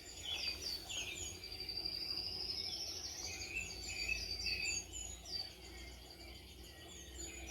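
Wild birds chirping and singing: many short, quickly repeated high notes, with one long rising whistle in the first few seconds, over a low steady rumble of background noise.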